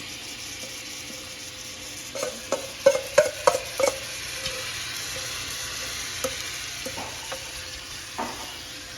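Marinated chicken pieces sizzling in hot olive oil in a frying pan, a steady hiss. About two to four seconds in comes a quick run of sharp utensil knocks against the pan, with a few single knocks later.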